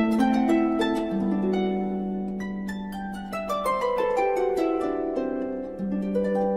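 Background music of plucked-string notes, with a falling run of notes through the middle over a held low note.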